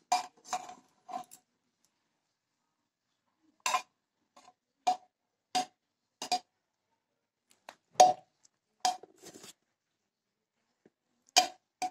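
A serving spoon clinking against an aluminium pressure cooker and metal dishes as biryani is scooped out and served. There are about ten separate clinks, each with a short ring, at irregular intervals; the loudest comes about eight seconds in.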